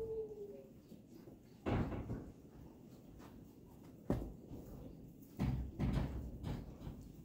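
Dull knocks and thumps on wood, with one sharp knock about four seconds in and a cluster of thumps near the end, as a horse shifts about in a stall.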